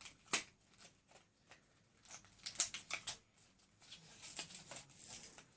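Plastic toy blister packaging being handled and opened: irregular crinkling and sharp plastic clicks.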